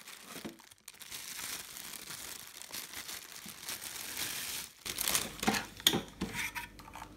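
Clear plastic wrapping crinkling and rustling as it is handled and pulled off a boxed submersible pump, with a run of sharper, louder rustles near the end.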